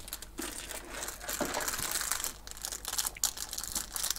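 Small clear plastic parts bag crinkling in the hands, with irregular sharp crackles, as spare Lego wheel rims are taken out of it.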